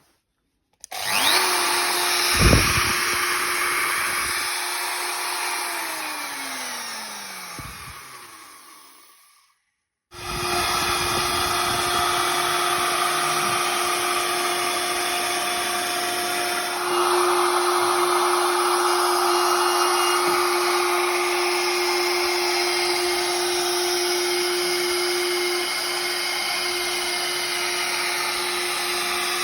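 Makita trim router's motor switched on and running with a steady high whine. It is switched off and spins down over about four seconds with a falling pitch, then is switched on again and runs steadily, a little louder for a stretch in the middle.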